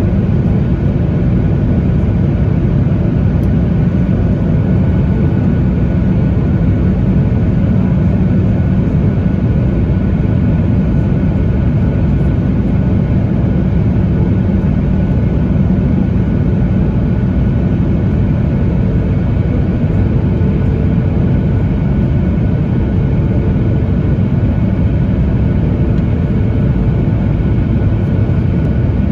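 Steady cabin noise inside a Boeing 737-900ER: a loud, even hum of the engines and rushing air, with a few faint steady tones above it and no change throughout.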